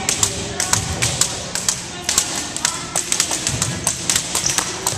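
Many quick, irregular taps and slaps striking a wooden gym floor, several overlapping at a time, over a low murmur of voices.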